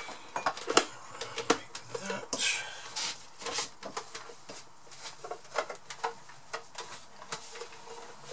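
A tea towel rubbing over a plastic jug as it is dried by hand, with scattered light clicks and knocks as the jug is handled.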